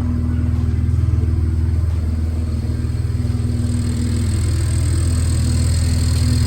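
BMW N54 twin-turbo straight-six idling steadily, fitted with new Vargas OEM+ turbos, with a faint high whine coming in about halfway through.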